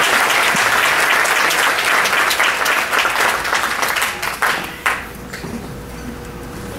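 Audience applauding, the clapping thinning out and dying away about five seconds in.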